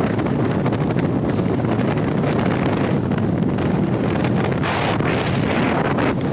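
Steady wind rush on the microphone of a moving Yamaha maxi-scooter, with the scooter's engine running underneath.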